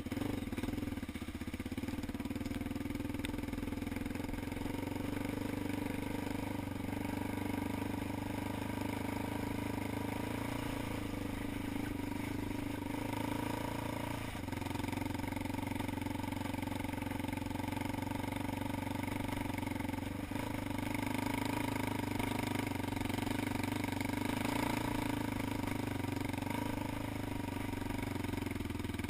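ATV engine running steadily at an even speed while under way.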